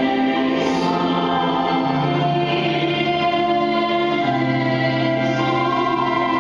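Choir singing a slow hymn in long held notes, the pitch moving every second or two.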